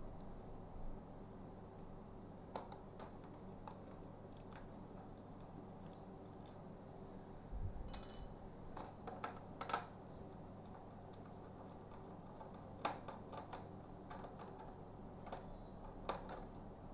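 Scattered light clicks and ticks of a small screwdriver and screws against the plastic chassis of a Toshiba Satellite C640 laptop as the screws under the keyboard are taken out, with one sharper clack about eight seconds in.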